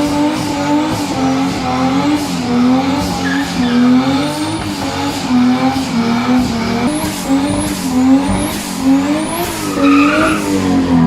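2JZ inline-six engine held at high revs during a burnout, its pitch rising and dipping again and again as the spinning tyres squeal.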